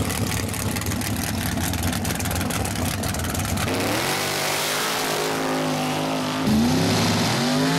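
Supercharged V8 of a mud-racing truck, open headers, running with a loud, rough rumble. About four seconds in it revs, its pitch climbing, holding and dropping again.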